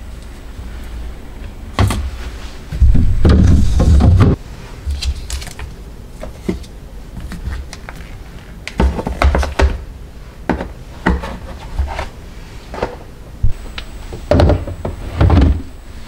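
Clear plastic storage bins and food packages being handled, slid and set down on refrigerator shelves and a countertop: a series of plastic clunks, taps and rustles, with a longer, louder sliding scrape about three seconds in and further bursts of clatter later.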